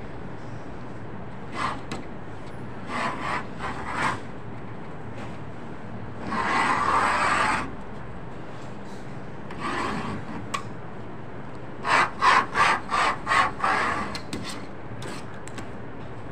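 A hand tool scraping and rubbing on sheet material laid on a worktable, in irregular strokes. There is one longer stroke midway and a quick run of five or six loud strokes near the end.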